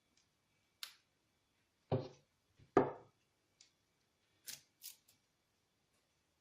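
Handling noises: a series of small clicks and knocks, with two louder thuds about two and three seconds in.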